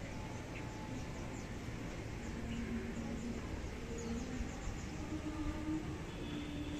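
Open-air ambience: a steady low rumble with faint, short, high chirps scattered through it and a few brief low hums.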